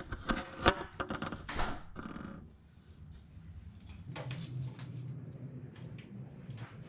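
Hand work on the motorcycle: a quick run of clicks, rattles and rustling from parts and tools being handled, with one sharp click about a second in. Scattered clicks over a faint low hum follow in the second half.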